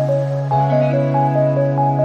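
Background music: a soft instrumental with a repeating pattern of short, bell-like notes over a held low note, the harmony shifting about half a second in.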